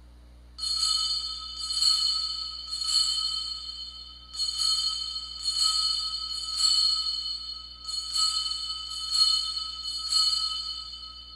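Altar bells rung at the elevation of the chalice: nine ringing shakes in three groups of three, each ring sudden and then fading, marking the consecration.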